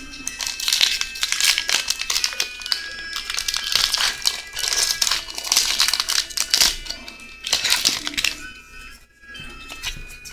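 Foil wrapper of a Pokémon trading card booster pack crinkling and tearing as it is opened, with dense rustling that thins out near the end. Background music plays underneath.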